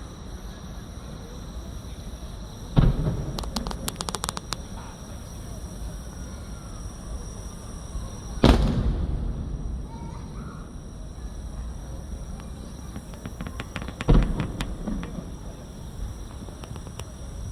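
Fireworks shells bursting: three heavy booms about five and a half seconds apart, each trailing off in a rumble, with rapid crackling after the first and the last.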